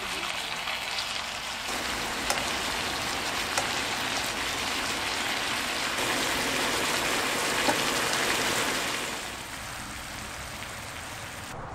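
Scallops sizzling in garlic butter in a frying pan on a portable gas stove, a steady frying hiss with a few light clicks of metal tongs against the pan. The sizzle grows a little louder, then drops off about nine seconds in.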